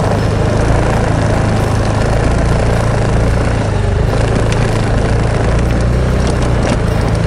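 Motorcycle engine running steadily at low speed, a low even hum under a hiss of wind and road noise.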